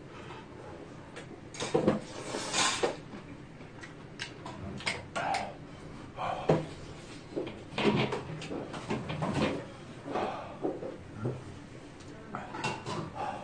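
A man eating spicy noodle soup with chopsticks: irregular slurps and breathy mouth noises, with light clicks of chopsticks and dishes. Near the end a paper napkin rustles.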